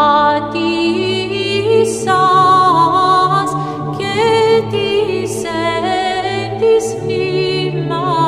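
Choir singing Orthodox church chant a cappella, melody lines moving above a low held drone.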